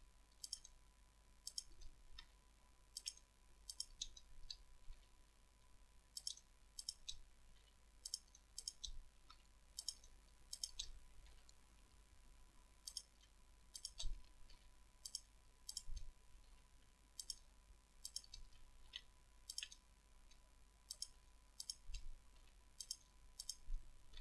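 Light, sharp clicks of a computer mouse and keyboard at an irregular pace, often in quick pairs, as mesh vertices are selected and faces filled. A faint steady high tone runs underneath.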